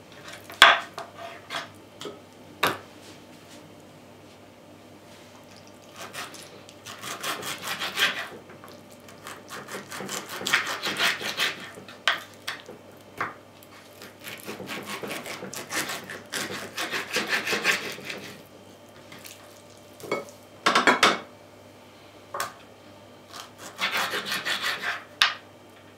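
Kitchen knife sawing back and forth through raw pork ribs on a wooden cutting board, in several bursts of rapid strokes a few seconds apart, with a few single sharp knocks in between.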